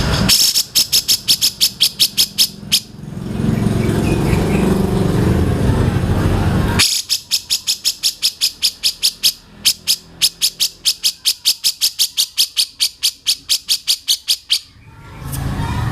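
Bird calling in fast runs of sharp, repeated notes, about five a second, in two long bursts with a noisier stretch between them.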